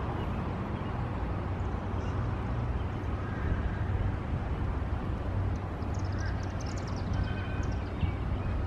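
Outdoor street ambience: a steady low rumble of street noise and wind on the microphone, with birds chirping briefly about six seconds in.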